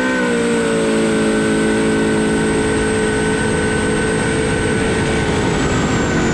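Twin-turbo 11.7-litre big-block jet boat engine running at high revs under way, held steady after a rise in revs, with a thin high whine over it that drops slightly near the end.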